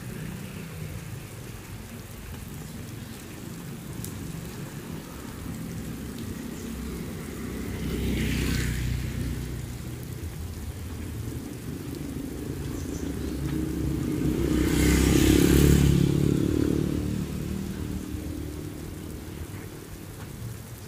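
Rain falling steadily with a low rumble underneath that swells twice, the louder swell about fifteen seconds in.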